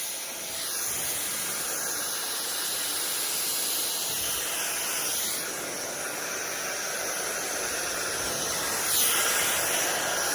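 Slopehill brushless-motor hair dryer with a smoothing attachment running, giving a steady high rush of blown air whose tone shifts a little now and then.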